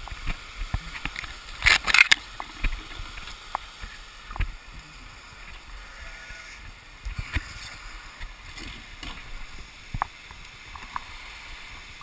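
Steady rush of a waterfall, with scattered knocks and rustles of ropes, webbing and climbing gear being handled; the loudest is a brief clatter about two seconds in.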